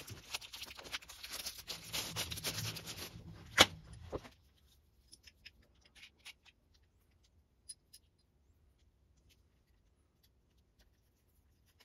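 Hands rustling and crinkling something for about three seconds, then one sharp click; after that only faint, scattered small metal clicks as battery cable terminals are handled.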